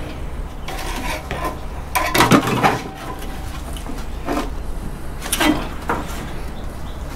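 Metal clanks and scrapes from handling an air conditioner's copper-aluminium radiator coil against its sheet-steel frame: a few separate knocks, the strongest about two and a half seconds and five and a half seconds in.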